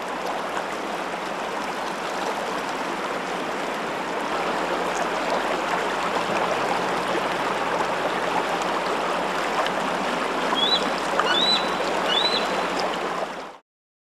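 Steady rush of flowing water, with three short, thin, high calls from a bald eagle near the end. The sound cuts off abruptly just before the end.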